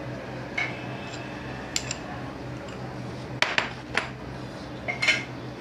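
Light, sharp clinks of a glass bowl and a ceramic mixing bowl knocking together, about half a dozen scattered through, with three close together about halfway.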